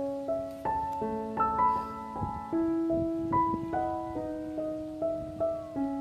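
Background piano music: a slow melody of held notes over longer sustained low notes.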